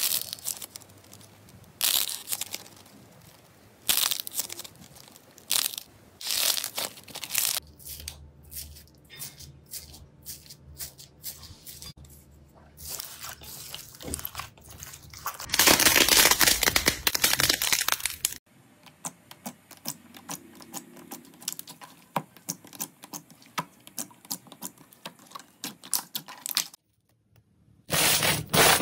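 Slime squeezed, pulled apart and kneaded by hand, including slime packed with foam beads, giving runs of sharp clicks and pops in bursts. About halfway through there are a few seconds of louder, continuous crackling, and there is a brief gap near the end.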